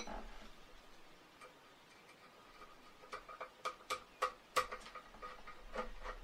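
Small steel screws being turned into a scope mounting rail on a rifle receiver with a T10 Torx screwdriver: a run of light metallic clicks and ticks, several a second and irregular, starting about three seconds in.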